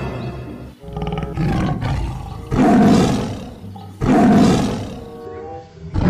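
A lion's roar played back as a sound effect for a fake toy lion, heard three times, each roar starting suddenly and fading away, the third beginning near the end. Short snatches of music sound before and between the roars.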